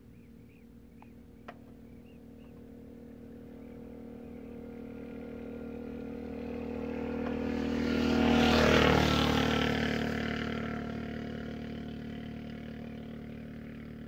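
A motor vehicle's engine approaching, passing close about eight to nine seconds in, and fading away. A single sharp click sounds about one and a half seconds in.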